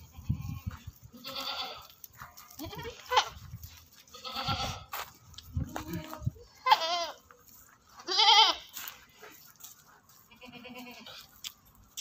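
Sirohi goats bleating in a pen: about half a dozen separate wavering calls from different animals, the loudest a little past the middle. A few low thumps are heard near the start.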